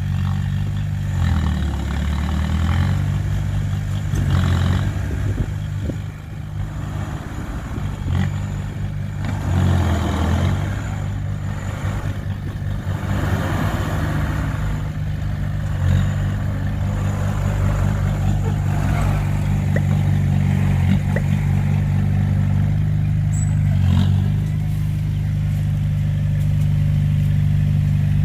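Heavy diesel engine running, revving up and easing off several times.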